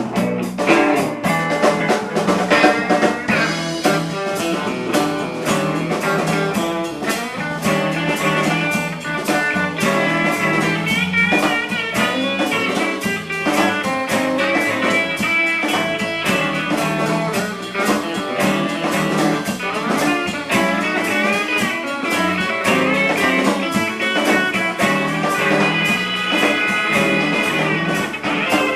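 Instrumental break of a blues song: guitar playing melodic lines over a steady drum-kit beat, with no singing.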